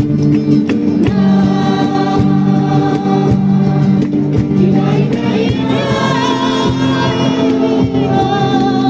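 Choir of men and women singing to Spanish guitar accompaniment, with hand clapping keeping a steady beat.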